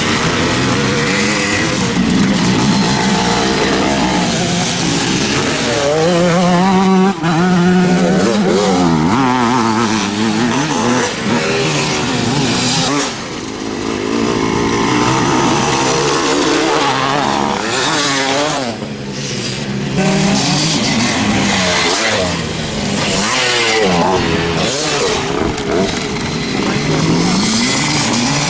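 Several classic motocross motorcycles racing, their engines repeatedly revving up and dropping back as riders work the throttle and shift through the course.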